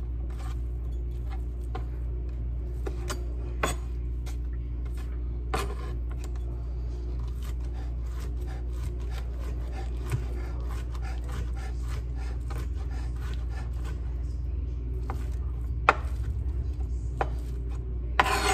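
Chef's knife chopping cooked chicken breast into chunks on a plastic cutting mat: a run of irregular knife strokes tapping the board, with a few louder knocks, over a steady low hum.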